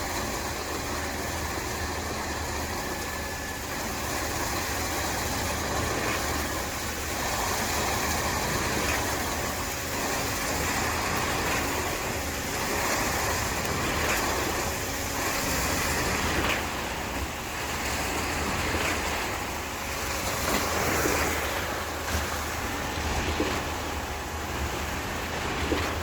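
KCP63 concrete pump truck running steadily while it pumps concrete: a constant low hum under a noisy rush that swells and eases a little.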